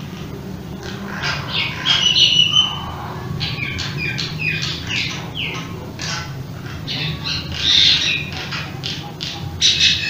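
Birds calling: many short chirps and squawks, some quickly falling in pitch, over a steady low hum.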